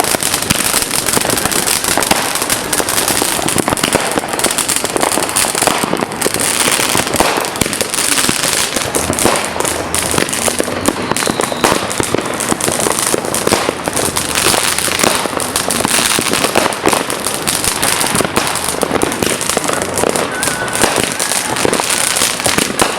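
Fireworks going off: a continuous, dense crackle of rapid sharp pops with no pause.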